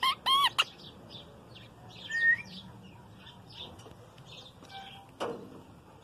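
Female rose-ringed parakeet giving three quick squawky calls at the start, then a short rising whistle about two seconds in. Faint bird chirps go on underneath, and there is a single sharp click near the end.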